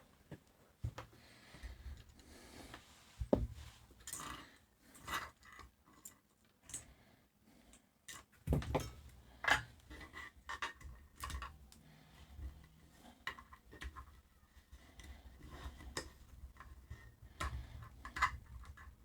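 Scattered light clicks, taps and scrapes of small tools and parts being handled during soldering work, with a sharper knock about three seconds in and a cluster of louder taps around eight to ten seconds.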